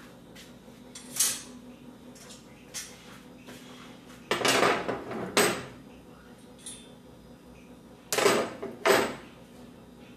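Metal burner grates of a gas stove clanking as they are set back onto the stove top: a few sharp metallic clatters, loudest in two pairs about four and eight seconds in, with lighter knocks between.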